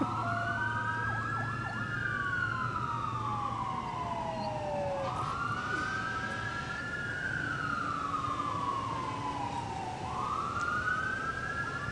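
Police car siren wailing slowly. Its pitch climbs for about two seconds, then falls for about three, repeating about every five seconds.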